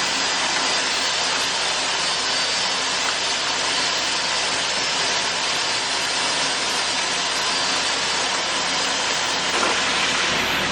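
Grain-handling equipment running steadily as the grain dryer unloads corn into a bin: a constant, even mechanical noise with faint steady tones under it.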